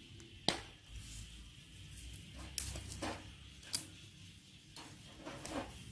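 Metal tongs clicking and tapping against a wire grill rack while ears of corn are turned over charcoal: three sharp clicks spread over a few seconds, with fainter taps between.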